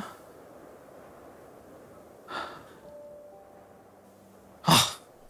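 A voice breathing out audibly twice, in a hesitant sigh or gasp: a short soft breath about two seconds in and a louder one near the end.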